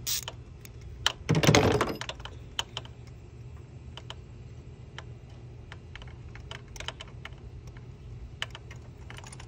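Scattered sharp clicks from a ratchet and 14 mm socket working a spark plug loose, with a louder clatter about a second and a half in. A low steady hum runs underneath.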